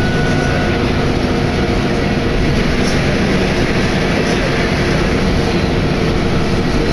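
Steady running noise of a Tenryu Hamanako Railway diesel railcar under way, heard from inside the passenger cabin.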